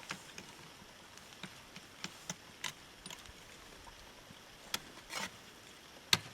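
Scattered, irregular clicks and knocks, with a short scrape about five seconds in and a sharp knock near the end.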